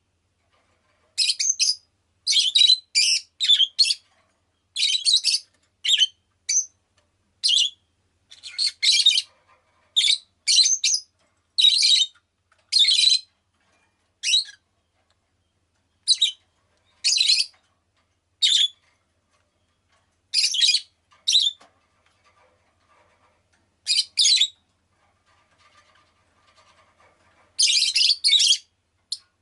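Rosy-faced lovebird giving loud, shrill chirps in quick clusters with short pauses between them. The calls thin out for a few seconds before a final dense burst near the end.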